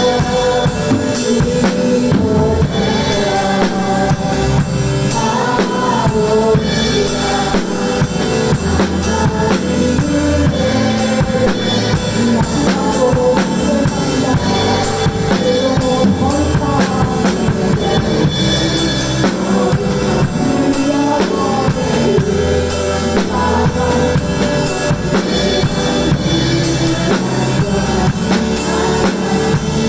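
Drum kit played along to a contemporary worship song backing track, with steady bass drum, snare and cymbal strikes over the band accompaniment.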